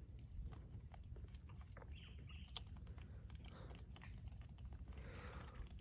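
Faint, irregular clicks and scratches, several a second, as a mud crab's hard shell and legs are handled in the hands.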